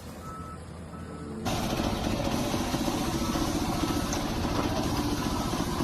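A heavy vehicle engine running steadily, with a backup alarm giving short beeps of one pitch about every 0.7 seconds. The sound drops for the first second and a half, then comes back suddenly louder.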